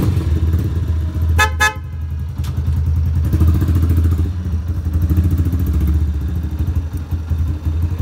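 Motorcycle engine running at idle, with two quick toots of its aftermarket Minda horns about a second and a half in.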